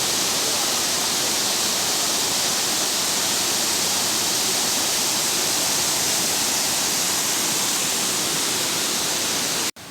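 Meenvallam waterfall's water rushing: a loud, steady roar, cutting off abruptly near the end.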